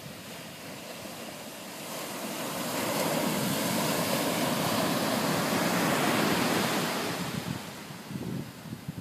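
Ocean surf breaking and washing up the sand, swelling about two seconds in and easing off near the end, with wind buffeting the microphone.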